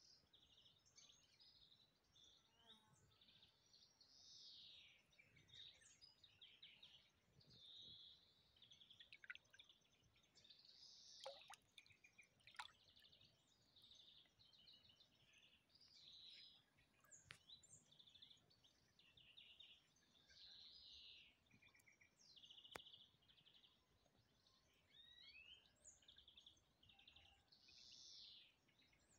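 Faint songbirds singing, short repeated chirps and warbling phrases from several birds overlapping, with a few sharp clicks around the middle.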